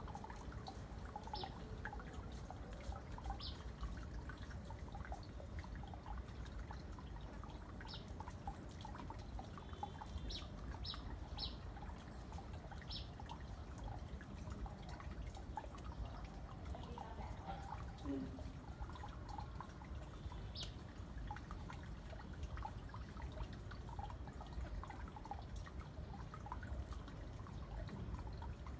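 Chickens foraging on bare ground and scattered greens, with many small irregular pecking taps and rustles, and a few short high bird chirps now and then.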